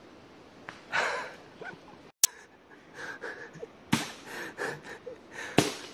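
Heavy panting and gasping breaths with short grunts of effort, interrupted by sharp clicks or knocks: one about two seconds in and two more in the second half.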